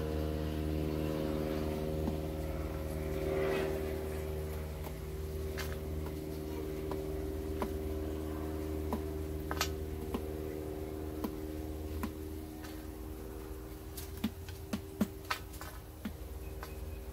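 Steady low mechanical hum, like an engine or motor running, that slowly fades. Scattered light clicks and taps sound over it, with a short cluster of sharper ones near the end.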